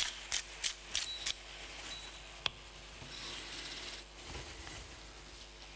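Food preparation at a counter: a quick run of sharp clicks, about three a second, stops a little over a second in. A lone click and a short hiss follow while raw chicken breasts are seasoned and turned over on a plastic cutting board.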